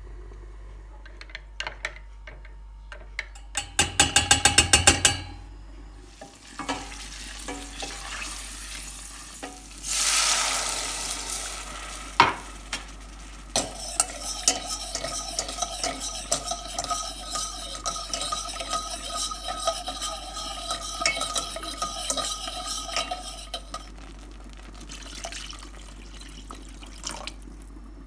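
Home cooking: a quick run of rapid clinks from a utensil against a dish a few seconds in, then food sizzling in a pan while a spoon stirs and scrapes it, with many small knocks.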